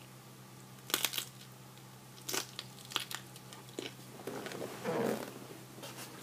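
Crisp fried tortilla being bitten and chewed, with several sharp crunches about a second apart and a softer, noisier stretch of chewing about five seconds in.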